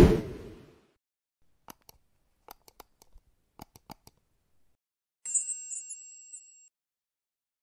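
Animated end-screen sound effects: a sudden hit at the start that dies away within about a second, a scatter of short faint clicks about two to four seconds in, then a high, sparkling chime lasting about a second and a half.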